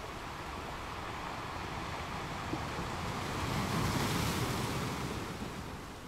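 Underwater rushing hiss, swelling for about two seconds midway and then falling back.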